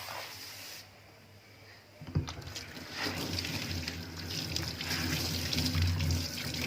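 Kitchen tap turned on with a knock about two seconds in, then water running steadily into a stainless steel sink.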